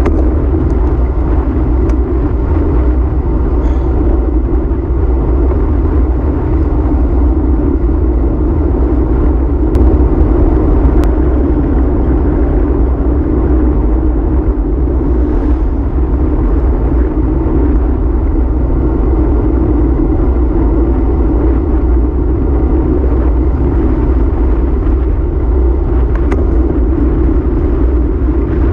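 Steady, loud wind buffeting on the microphone of a handlebar-mounted camera on a road bike moving at speed, with a deep rumble from the tyres rolling on asphalt.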